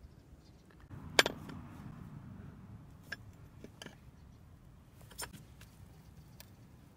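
A sharp knock about a second in, then scattered small clicks and creaks as a hand auger drill bit is set against a log and turned into the wood by hand.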